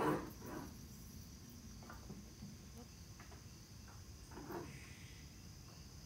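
Hardwood blocks knocked against each other and set down on a wooden workbench: a sharp knock at the start, a few lighter taps, and another knock about four and a half seconds in. A steady high-pitched whine runs underneath.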